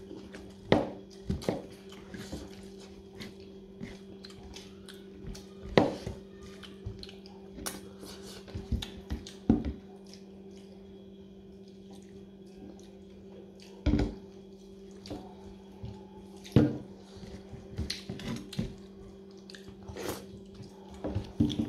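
Eating rice and dal by hand from a steel plate: scattered wet smacks and clicks as fingers squish and gather the rice against the plate, along with chewing. A steady low hum runs underneath.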